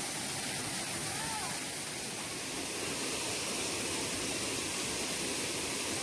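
Steady rushing of a waterfall and stream, an even wash of water noise.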